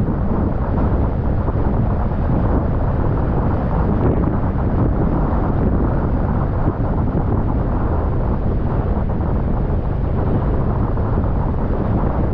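Steady low rushing noise of a car driving, wind and tyres on the road, with no distinct engine note.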